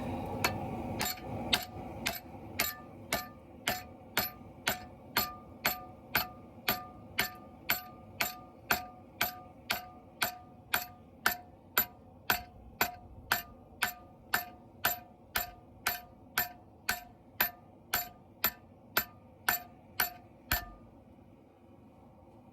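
Hand hammering on an anvil while forging a knife blade, about two ringing blows a second for some twenty seconds before it stops. A short steady rushing noise fades out at the start.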